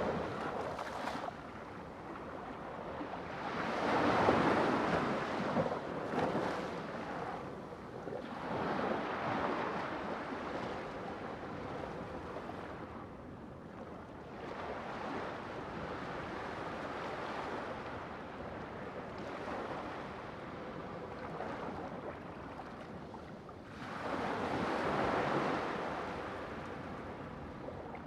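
Sea waves surging and washing on the shore in slow swells, the loudest surges about four seconds in and again near the end.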